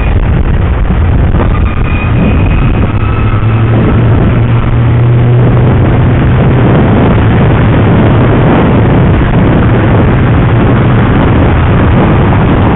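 Loud traffic noise heard from a moving bicycle on a busy road. A passing vehicle's low engine drone is strongest from about four to eight seconds in.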